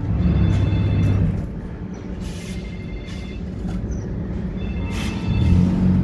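A vehicle engine running with a steady low rumble, louder in the first second and again near the end, with music over it.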